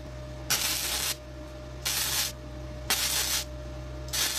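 Flux-core arc from a Flameweld MTA1450 multiprocess welder crackling in four short bursts of about half a second each, roughly one a second, as thin exhaust pipe is welded in short runs. The welder has been turned down after running too hot, and this setting is judged better.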